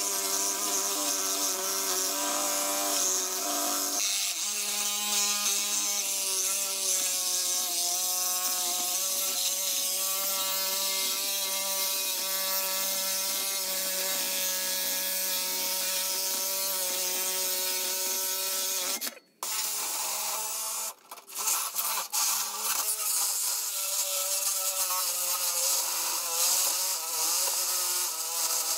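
Milwaukee cordless reciprocating saw running steadily as it cuts through the steel shell of a gas water heater. It cuts out about two-thirds of the way through, stops and starts once more, then runs on.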